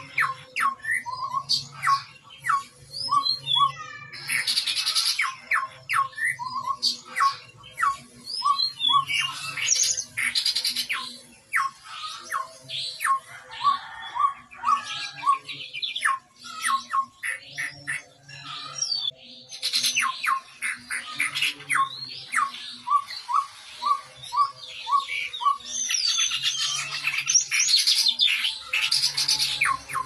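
Chestnut-rumped babbler calling constantly in full voice: runs of harsh, raspy calls mixed with many short whistled notes that drop in pitch, with brief pauses between bouts.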